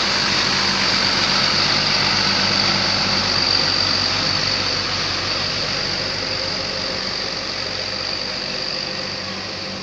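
Bus engine running steadily with road noise, slowly growing fainter near the end.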